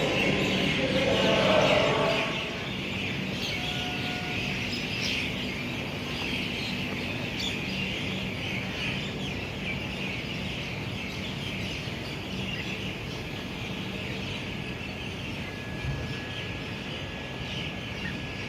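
A dense chorus of many small birds chirping continuously, with a faint low steady hum beneath.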